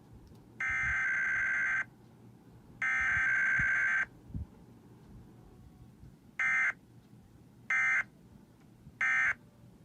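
Emergency Alert System SAME data tones of a Required Weekly Test. Two buzzing header bursts about a second long, a second apart, are followed after a pause by three short bursts: the end-of-message code that closes the test.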